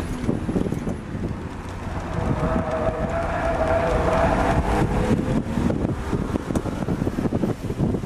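BMW E36 M3's straight-six engine running at track speed, heard from inside the cabin with wind buffeting the microphone. A steady high tone swells for about three seconds in the middle.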